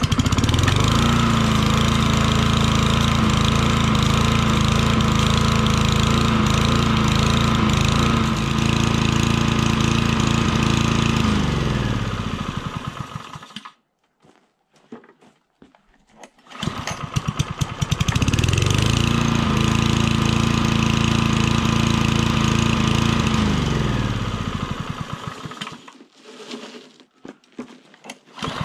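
Lawn mower's Chinese Honda GXV-clone engine catching and running steadily for about eleven seconds, then slowing and dying. It starts again and runs for about six seconds before slowing and stalling once more, the way an engine without a choke dies when it needs more priming.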